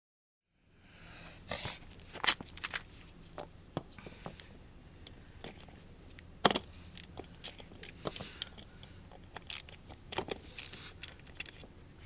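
Irregular clicks, knocks and scrapes of hand tools and metal parts being handled during work on a truck engine's crankcase ventilation module, starting about half a second in.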